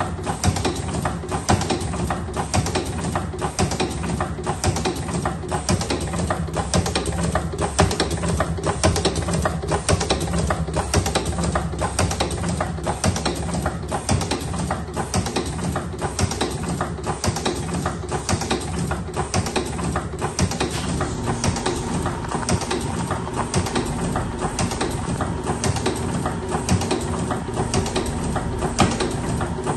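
Electric slim-cigarette rolling machine running, its mechanism clattering in an even rhythm of about one click a second over a steady motor hum. About two-thirds of the way in, a steady whine joins.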